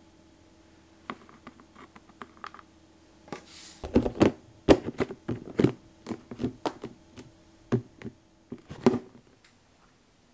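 A clear plastic food container being handled and its lid pressed on and snapped shut: a few light taps, then a run of sharp plastic clicks and knocks over several seconds. A faint steady hum lies underneath.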